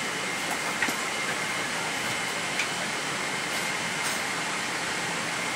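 Steady rushing hiss of a Boeing 777-300ER cabin's air-conditioning and ventilation with the aircraft at the gate, carrying a faint, steady high-pitched whine. A few light clicks sound over it.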